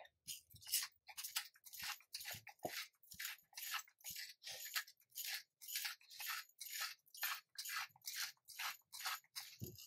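Seasoning being dispensed from a spice container onto steak: a regular run of short crunching, gritty strokes, about two to three a second.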